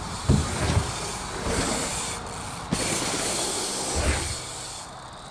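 Bike rolling on a dirt run-in: a steady hiss of tyres on dirt that begins about a second and a half in, with dull thumps near the start and again about four seconds in.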